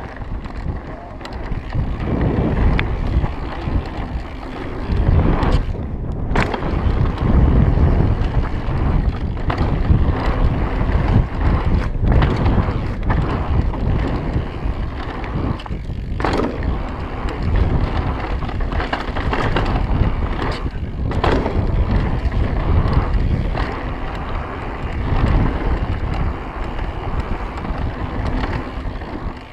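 Mountain bike ridden along a packed-dirt trail: steady tyre and wind noise on the microphone, broken by frequent sharp knocks and rattles as the bike goes over bumps.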